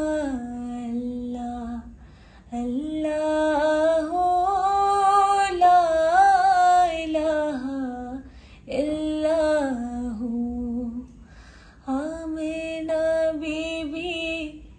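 A young woman singing a naat solo, in long drawn-out phrases with sliding, ornamented notes and short breaths between them.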